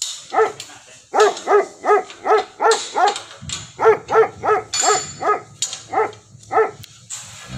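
A dog barking repeatedly, about fifteen short barks at two or three a second, with a brief pause near the middle.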